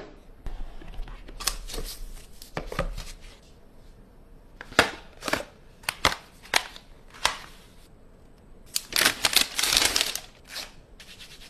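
Phone retail box and packaging handled by hand during an unboxing: a run of sharp clicks and taps of cardboard and plastic, then a dense burst of rustling and scraping around nine to ten seconds in.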